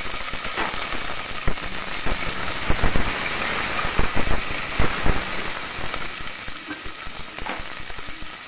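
Shallots and garlic sizzling in hot oil and ghee in an aluminium pressure cooker, with a wooden spatula stirring and knocking against the pot many times in the first few seconds.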